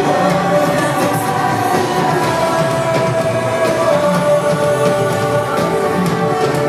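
A live band playing loud on stage, heard from the audience, with long held notes.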